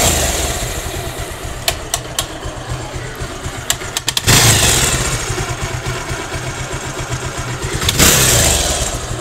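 220 motorcycle engine starting and running, revved up twice, about four seconds in and near the end, with a popping, knocking noise. The mechanic traces the noise to a worn magneto-side one-way starter clutch whose plates and bearings are eaten away.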